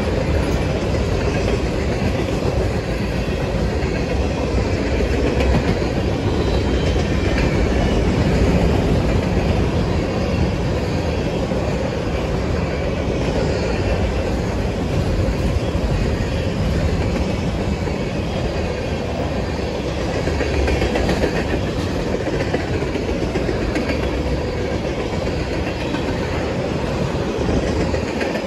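Freight train of tank cars and covered hoppers rolling past, its wheels running steadily on the rails.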